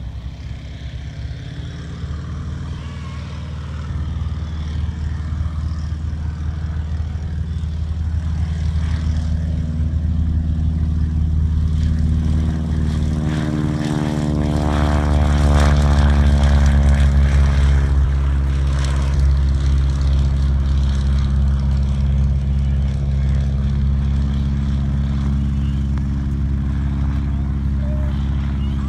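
Boeing Stearman biplane's radial engine and propeller at full takeoff power, growing steadily louder as it comes down the runway, loudest as it passes about halfway through, then running on strongly as it climbs away.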